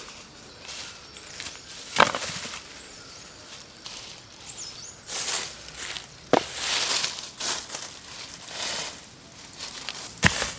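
Rustling and crackling of dry leaves and twigs being handled, with three sharp knocks or snaps spread through it and one brief faint bird chirp in the middle.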